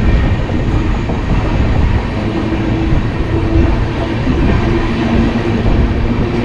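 Passenger train coach rolling along the track, heard from its open doorway: a steady, loud rumble of wheels and running gear, with a low steady hum joining in about two and a half seconds in.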